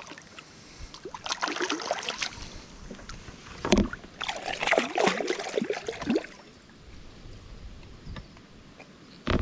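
Splashing of a hooked sooty grunter thrashing at the surface of shallow water as it is landed by hand, in two bouts, with a sharp knock between them and another near the end.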